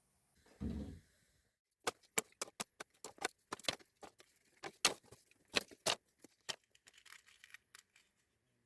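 A dull thump, then a run of sharp, irregular clicks and taps, like utensils and containers being handled during cooking preparation, fading to light rustling near the end.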